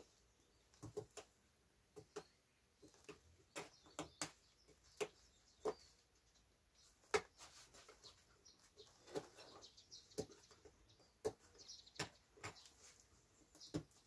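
Faint, irregular clicks and scratches of a small metal pick prying and scraping crumbly bark and debris out of the rough natural edge of a jujube-wood slab.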